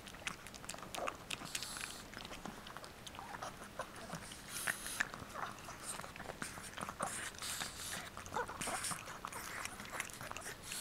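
Chihuahuas licking ice cream from a cone: a steady run of small, irregular smacking clicks.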